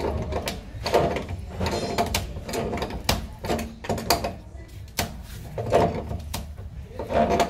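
Tongue-and-groove pliers gripping and turning the square head of a threaded PVC cleanout plug, giving a run of irregular sharp clicks and short scrapes of metal jaws on plastic and the plug's threads.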